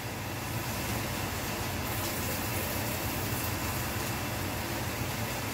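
Steady hissing noise of a stainless steel pan of rice, vegetables and water heating on a stovetop burner, with a low steady hum underneath.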